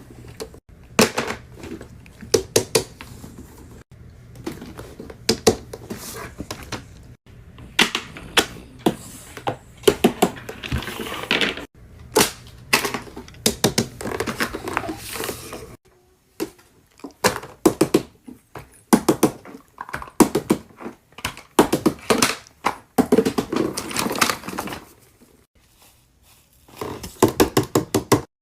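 Quick, sharp clicks and taps coming in clusters, from fidget toys being handled and clicked, with short pauses between the runs.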